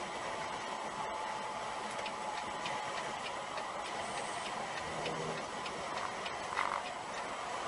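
Steady road and engine noise inside a semi-truck cab, with the turn signal clicking evenly, about three ticks a second, for several seconds as the truck moves over. A brief louder sound comes near the end.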